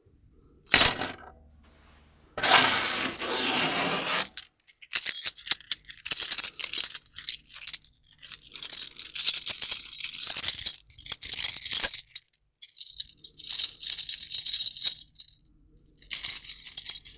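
A bunch of metal keys jingling and rattling in repeated bursts of a few seconds each, with a single sharp clink about a second in.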